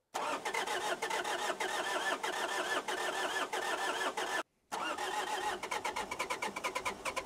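Pickup truck's engine turning over on its starter, boosted by a portable jump starter, cranking without catching in two tries separated by a short break. The jump starter is probably drained and the truck's battery looks badly worn out.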